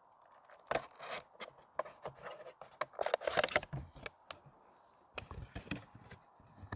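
Small items and packaging being handled: scattered clicks and taps, with a brief rustle about three seconds in.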